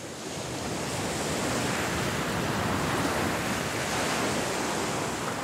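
A steady rush of ocean surf, swelling in over the first second and easing slightly near the end.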